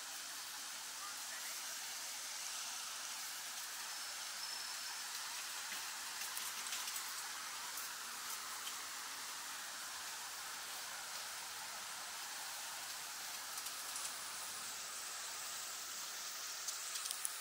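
Steady hiss of falling, splashing water, with a few faint ticks.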